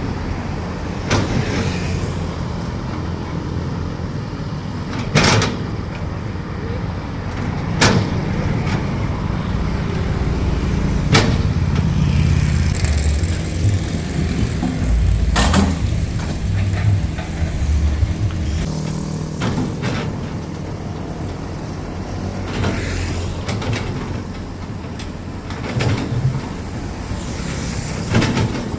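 Diesel engines of hydraulic excavators running under load, with sharp metallic knocks every few seconds as the machines work.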